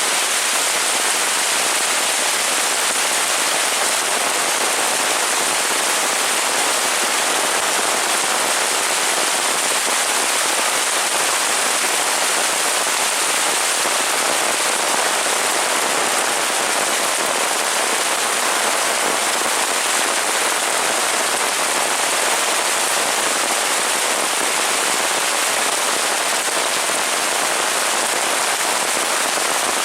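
Heavy rain falling steadily, a dense even hiss of drops on surfaces that neither swells nor fades.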